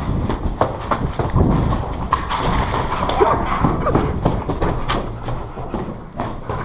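Quick, irregular footsteps of boots on concrete floors and stairs littered with debris, with scattered knocks.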